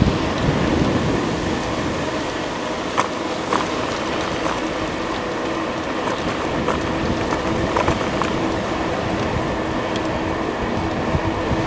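Riding noise on an electric bike: wind rushing over the microphone and tyres rolling make a steady, dense rumble, with a steady hum underneath and a few sharp rattles.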